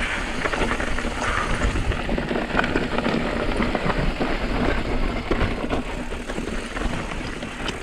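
Mountain bike on loose, rocky trail: tyres crunching over gravel and stones with a dense run of small clicks and rattles, over a low rumble.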